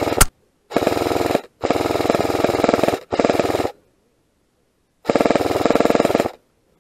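Airsoft electric rifle firing on full auto: several bursts of rapid, evenly spaced shots, each about half a second to a second and a half long, broken by short pauses.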